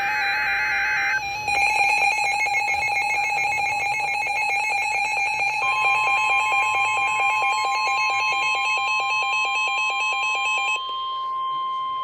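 NOAA weather alert radios, one a Reecom, sounding their alarms for a warning: warbling alternating beeps at first, then a fast pulsing alarm from about a second and a half in. About halfway through, the steady 1050 Hz warning alert tone of the NOAA Weather Radio broadcast joins in. The pulsing alarm stops about a second before the end, while the steady tone holds.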